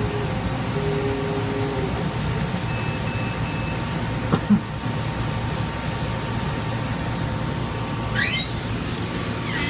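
Laser cutter cutting MDF: a steady hum and hiss of its fans and air, with short whirring tones from the head's motors as it traces the cut. Two sharp clicks come about four and a half seconds in, and a quick rising whine near the end.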